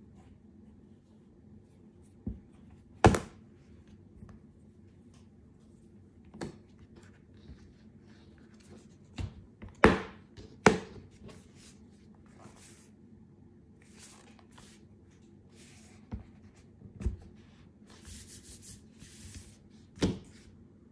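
Hands handling an iPad in a folio case on a table: a string of separate sharp clicks and taps as the cover is folded shut and the pencil flap closed over the Apple Pencil, with brief rubbing near the end.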